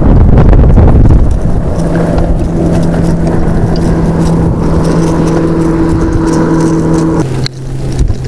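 Motorboat engine running at a steady pitch, then dropping to a lower pitch about seven seconds in, with wind rumble on the microphone in the first second.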